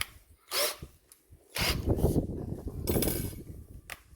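Plastic housing of a cordless drill being handled and pried apart: a sharp click, then a couple of seconds of clattering and scraping plastic.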